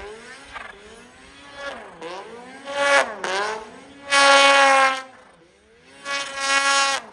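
Snowmobile engine revving hard in repeated surges while riding through deep powder, its pitch climbing and falling several times. The loudest surge is a sustained full-throttle pull about four to five seconds in, and the sound drops away near the end.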